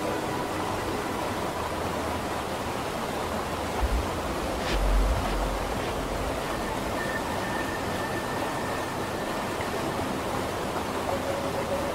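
Steady, even rushing noise, with a soft low thump and a faint click about four to five seconds in, and a few faint held tones.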